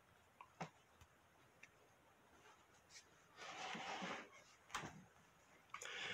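Near silence in a small room, broken by a few faint, scattered clicks and a brief soft rustle a little past halfway.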